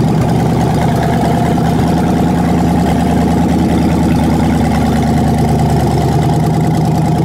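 Ford 302 V8 on an engine stand idling steadily with no exhaust system fitted, so it runs straight out of the exhaust manifolds. One bank is still running rich.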